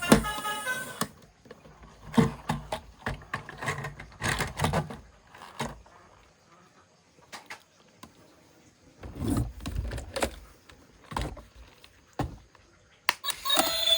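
Plastic toy vehicles and their packaging being handled: irregular clicks, knocks and short rustles. A toy's electronic sound effect cuts off about a second in, and another starts near the end.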